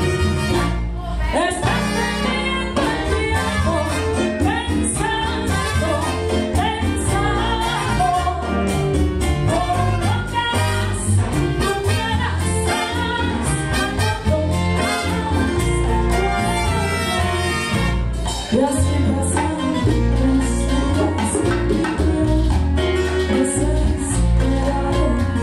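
Live Cuban band music with a woman singing into a microphone over a steady bass line.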